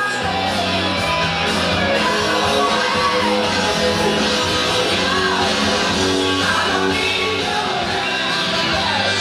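Rock music with guitar and a singing voice, playing steadily.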